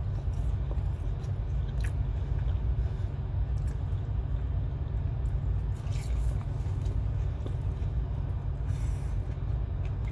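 Steady low rumble inside a truck cab, with a man chewing food and a few faint mouth clicks.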